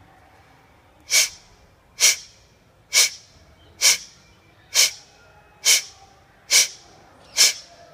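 Kapalabhati yoga breathing: a woman's short, forceful exhalations through the nose, each pushed from the lower belly, eight sharp hissing puffs in a steady rhythm of about one a second, starting about a second in.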